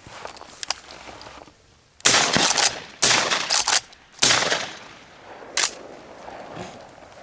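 Dry brush crackling and crashing close to the microphone as a hunter pushes through thick desert scrub, in three loud rustling surges about a second apart, with lighter crackling around them.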